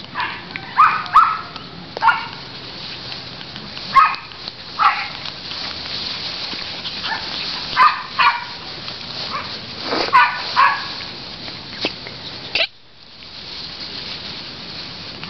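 Corgi–Sheltie mix puppies yipping and barking in short, high-pitched bursts as they play, about a dozen yips in small clusters.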